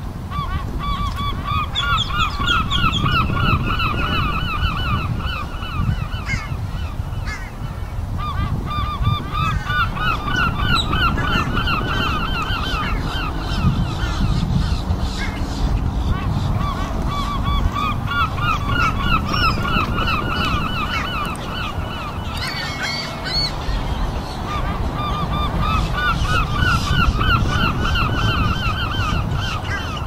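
Gulls calling in runs of rapid, repeated notes lasting a few seconds each, several birds overlapping, over a steady low rumble.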